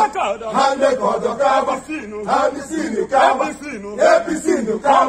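A group of men chanting together, many voices overlapping.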